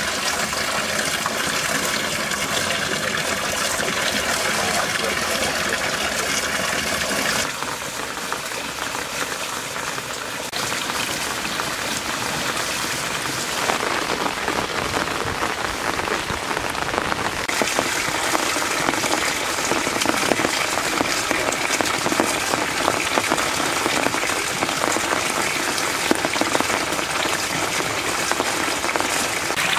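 Water pouring from bamboo spouts and splashing into shallow cement-lined pond basins: a steady hiss of falling water. It changes abruptly in tone several times.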